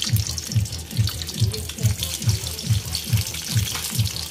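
Slices of chicken luncheon meat sizzling in hot oil in a wok, under background music with a steady low beat of about two and a half beats a second.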